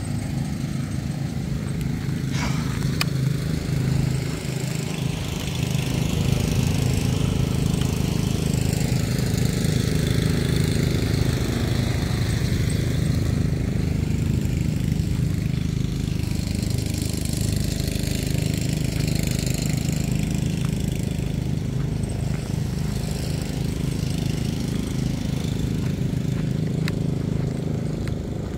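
Petrol lawn mower engine running steadily, a continuous low drone with a few faint clicks over it.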